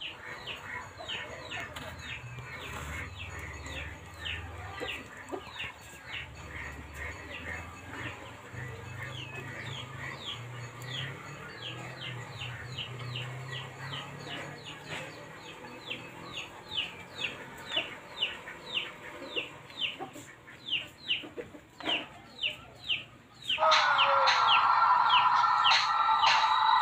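Chickens: a steady run of short, high, falling peeps, about two or three a second. A loud rooster crow starts near the end.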